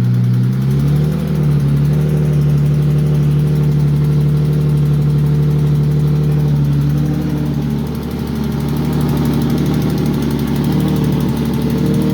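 Nissan VQ35HR 3.5-litre V6 running at idle on its first start, its exhaust not yet bolted up. The idle rises slightly about a second in, holds steady, then dips around eight seconds in and runs less evenly.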